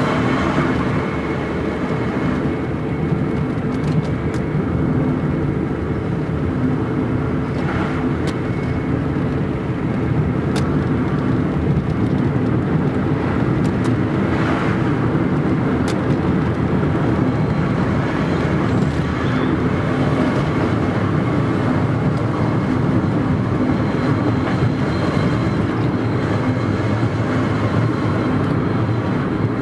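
Fiat Punto 1.2 8v running with a steady, constant-pitched whirring noise, the unwanted whir that is being recorded to trace it.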